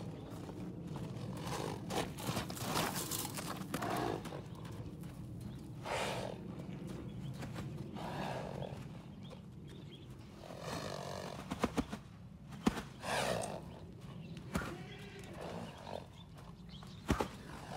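Arabian stallion calling and blowing as it canters loose in a sand arena, in loud bursts every second or two, some with a rippling pitched cry. A few sharp clicks come in the second half.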